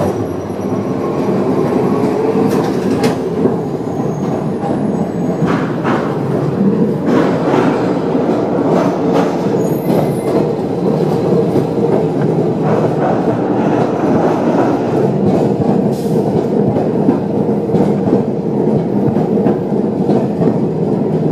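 A 1928 Milan "Peter Witt" streetcar rolling along its rails, heard from on board: a steady, dense running noise of the car on the track with a few sharp knocks. It gets louder within the first second or two.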